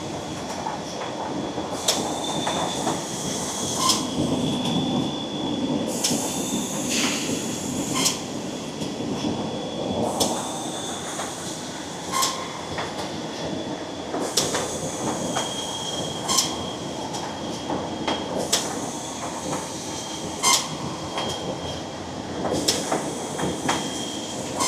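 Automatic rigid-box positioning machine running in a repeating cycle, with a sharp mechanical clack about every two seconds over a steady high whine and mechanical hiss.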